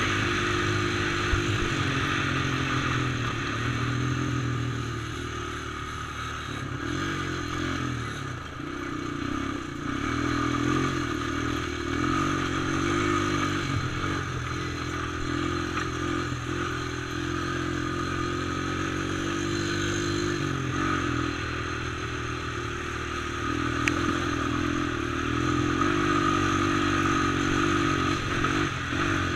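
Sport quad's engine running steadily as it is ridden along a gravel trail, easing off and picking up again several times, over a constant rattle and crunch of gravel under the tyres.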